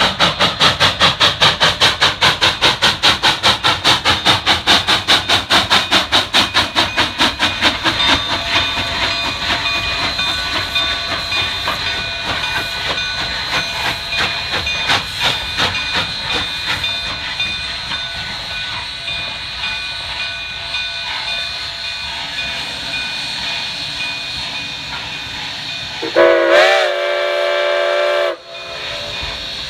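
Narrow-gauge K-36 steam locomotive working hard, its stack exhaust a fast, even chuffing of about four beats a second for the first several seconds. Then the engine stands hissing steam steadily, and near the end its steam whistle gives one blast of about two seconds.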